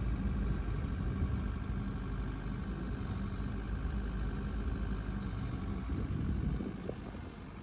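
Bobcat 331 mini excavator's 42 hp diesel engine running steadily while the boom, arm and bucket are worked; the engine sound falls a little quieter near the end.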